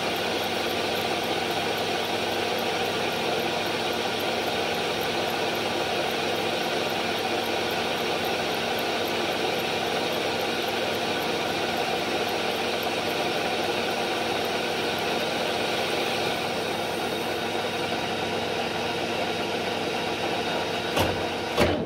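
Schaublin 102VM lathe running, with an indexable-insert turning tool cutting into the spinning workpiece: a steady machining noise with a faint, evenly repeating high tick. Near the end come a couple of sharp knocks, and the sound drops away.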